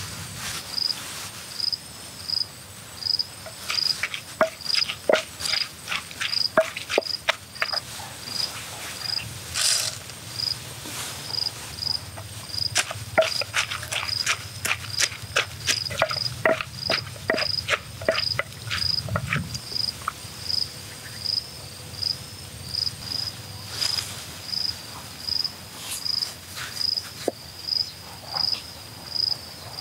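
An insect chirping in an even rhythm, a short high chirp about one and a half times a second. Scattered sharp clicks and taps come and go over the first two thirds.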